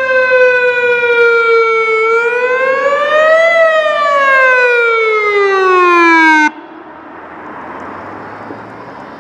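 Whelen WPS 3016 electronic outdoor warning siren sounding its wail tone. The pitch dips, climbs once, then falls away, and the tone cuts off abruptly about six and a half seconds in as the test ends. A steady, much quieter hiss remains afterwards.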